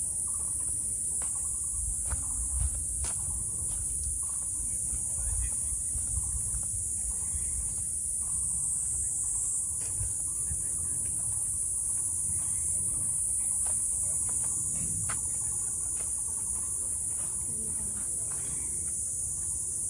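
Steady high-pitched insect chorus, with scattered light clicks and a low rumble underneath.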